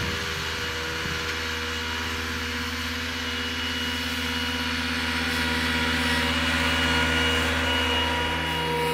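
Ventrac 4500 compact articulated tractor's engine running steadily under load as it pushes deep snow with its V-blade plow, getting a little louder in the middle.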